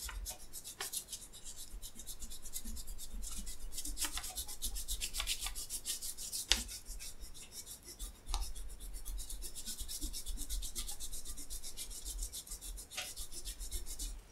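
PEL RubGum gum eraser rubbed in quick back-and-forth strokes over paper, dry-cleaning soiling off a test sheet. A few sharper taps break the steady scrubbing, the clearest about six and a half seconds in.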